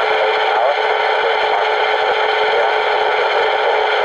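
FM CB radio receiver hissing loudly and steadily, with a constant mid-pitched hum tone and hardly any voice getting through. This is a 400 mW low-power transmission arriving too weak to copy, its speech buried under the noise.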